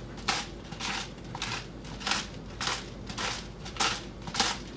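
Hand-twisted salt grinder grinding salt crystals into the bowl: a run of short, crackly grinding strokes, about two a second.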